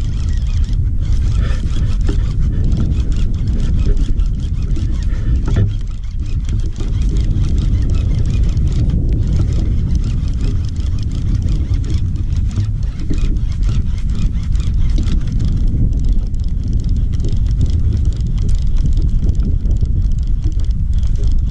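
Wind buffeting the camera's microphone on open water: a loud, steady low rumble.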